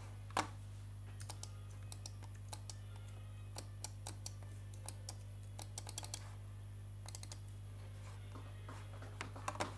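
Sparse, irregular clicks from a computer keyboard, in short clusters with gaps between, over a steady low electrical hum.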